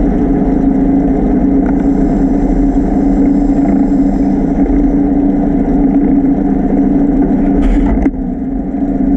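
Underwater scooter's electric motor and ducted propeller running steadily, a loud, even hum. The sound drops a little about eight seconds in.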